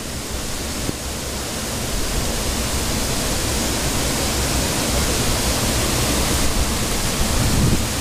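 A waterfall pouring into its plunge pool: a steady, even rush of falling water.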